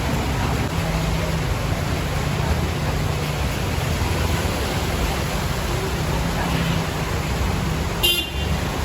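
Steady road-traffic noise with a low engine rumble, and a short vehicle horn toot near the end.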